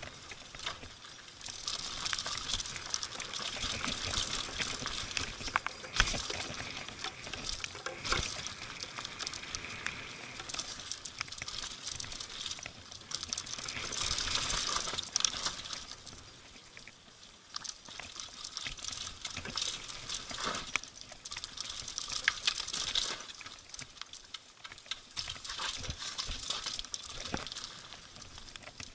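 Mountain bike riding fast down a dirt and gravel trail: tyres crunching and hissing over loose ground, the bike rattling, with sharp knocks over bumps and rocks, notably about six, eight and twenty-two seconds in.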